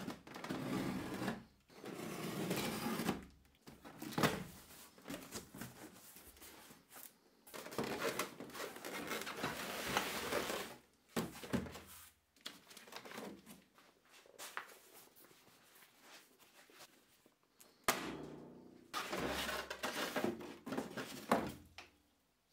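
A cardboard box being opened and unpacked: tape cut, cardboard flaps and styrofoam packing rustling and scraping in three long bursts, with a couple of sharp knocks between them.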